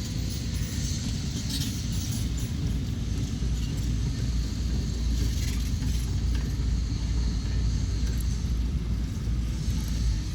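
Heavy construction machine's diesel engine running with a steady low rumble, with faint scattered rattles above it.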